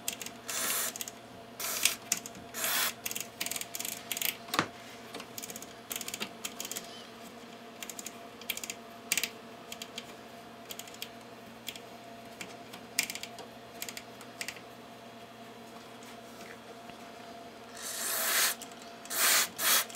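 Rotary switches and knobs on an opened Tenma 72-320 oscilloscope being turned back and forth after a spray of contact cleaner, giving irregular small clicks as the switches step through their detents. Two short hisses come near the end.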